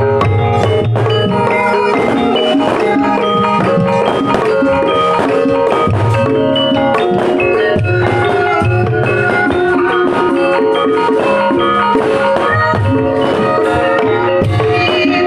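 North-coast Javanese (Pantura) gamelan ensemble playing an instrumental gendhing: bronze metallophones and gongs ring out overlapping melodic lines over a hand-played kendang drum and recurring low drum beats.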